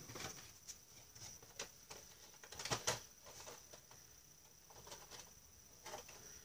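Faint rustling and tapping of a cardboard shipping box being opened and a boxed vinyl figure being handled, with a couple of sharper knocks a little under three seconds in.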